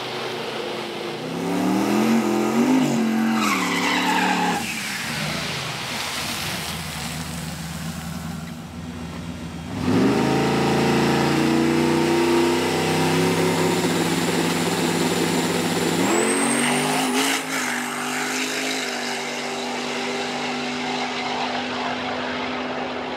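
Drag-racing car engines at the strip. An engine revs with its pitch rising and falling. About ten seconds in a louder run starts suddenly, climbs in pitch and then holds steady, with a short rising whistle near the three-quarter mark.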